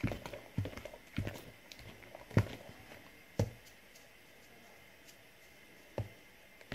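A hand mixing wet mashed-plantain batter in a bowl: soft squishing with a few irregular light knocks against the bowl. The last few seconds are quieter, with one more knock near the end.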